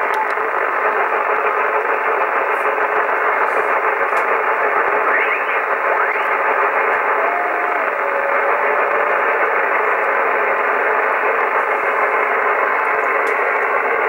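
Yaesu FT-840 HF transceiver receiving on the 11-metre band in upper sideband: steady band-noise hiss from its speaker, narrowed to the sideband's voice passband. Faint whistles glide up in pitch about five seconds in, with a short held tone a little later.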